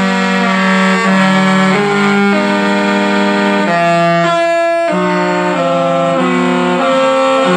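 A ringtone playing: a melody of held chords, the notes changing about every half second.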